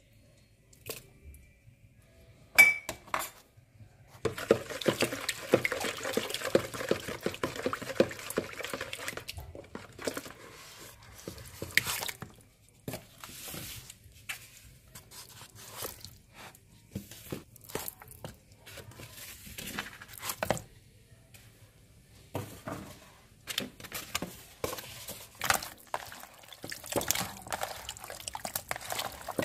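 Raw chicken drumsticks handled in a bowl of liquid spice marinade: wet squelches and smacks as they are turned and rubbed by hand, and knocks against the bowl, the sharpest one about three seconds in. From about four to nine seconds in there is a stretch of steady rustling, splashy noise.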